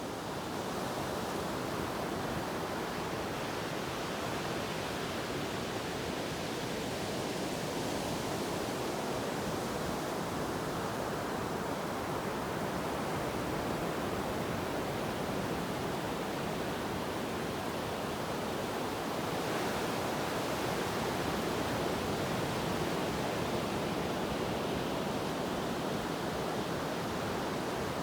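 Ocean surf washing steadily, an even hiss of breaking waves that swells twice as larger waves come in.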